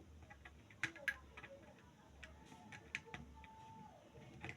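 Irregular light clicks and taps of small electronic parts and wires being handled while a transistor circuit is assembled, the two sharpest about a second in, over a faint low hum.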